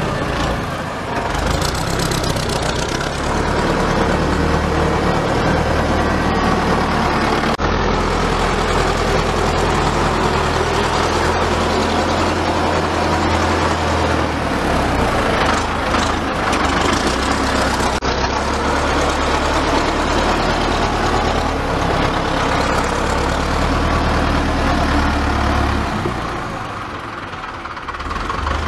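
A farm tractor's engine runs steadily and loudly under load as its front dozer blade pushes and levels loose soil. The engine becomes quieter near the end.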